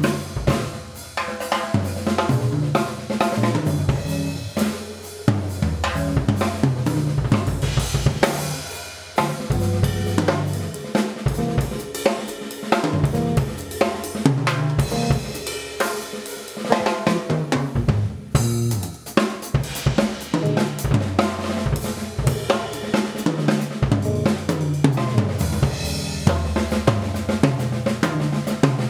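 Pearl drum kit played in a solo: snare, bass drum, hi-hat and cymbals struck in dense patterns, with brief let-ups about nine and eighteen seconds in.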